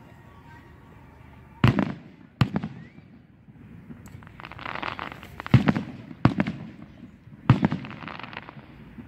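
Distant aerial firework shells bursting: about five sharp bangs, two close together near two seconds in and three more in the second half, each trailing off in a rumbling echo.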